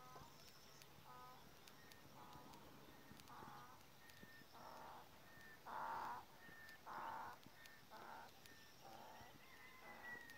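A faint series of short animal calls, about one a second, loudest about six and seven seconds in, with a few thin bird chirps.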